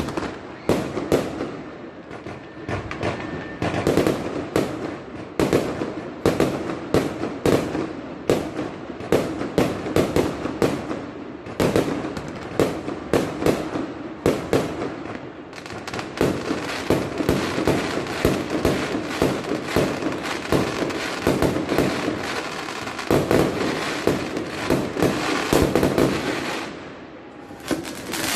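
Many fireworks and firecrackers going off at once: a dense, irregular run of bangs and pops, thickening into near-continuous crackling in the second half, with a short lull near the end.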